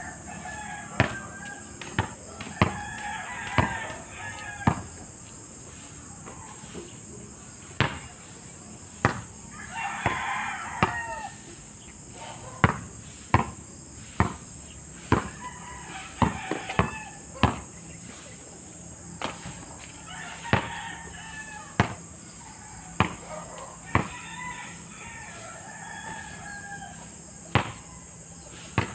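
A basketball bouncing hard on an outdoor court, sharp bangs every second or so, now and then in quick runs of dribbles. Between them a rooster crows again and again in the background.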